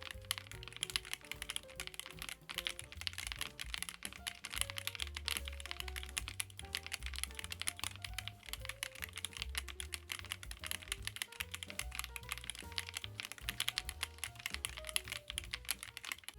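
Rapid, continuous typing on the MonsGeek M1W, an aluminium-case, gasket-mounted mechanical keyboard, with many quick key clicks over soft background music.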